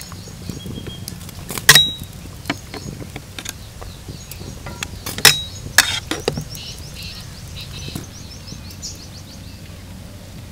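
Scattered knocks and clinks of cooking utensils as dough is worked, with two loud sharp clinks, about two seconds in and about five seconds in, each ringing briefly.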